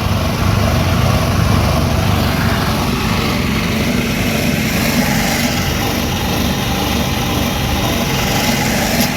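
Loud, steady engine of road-construction machinery running at the asphalting site.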